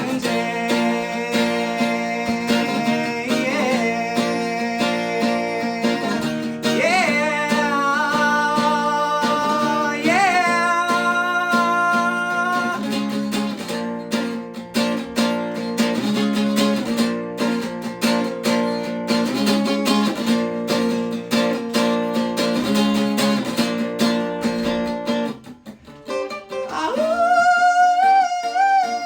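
Music: a strummed plucked-string instrument playing chords, with a wordless voice over it. The strumming stops briefly near the end, and a wavering hummed note comes in.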